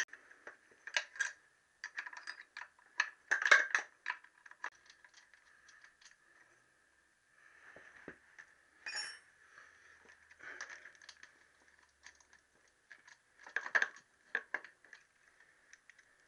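Scattered metallic clicks and clinks of hand tools and loose nuts as a motorcycle carburettor is unbolted from its mounting studs and worked free, coming in short clusters about a second in, around three to four seconds, and near fourteen seconds.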